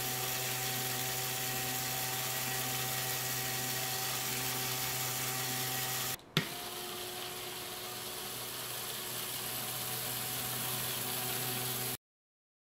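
LEGO Technic spirograph machine running: a small electric motor whirring steadily through its plastic gear train, with a steady hum. About six seconds in the sound drops out briefly with a click, then the whir carries on a little quieter.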